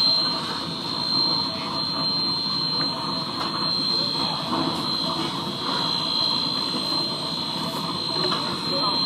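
Steady rushing hiss with a constant high-pitched whine from steam machinery: the locomotive supplying steam to the pile driver car. There are no hammer blows.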